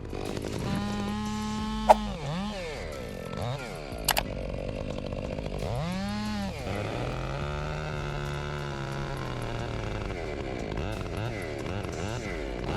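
Stihl MS500i two-stroke chainsaw running at high revs, its pitch dropping and rising with the throttle a few times before settling into a steady lower pitch. A sharp click sounds about two seconds in and another about four seconds in.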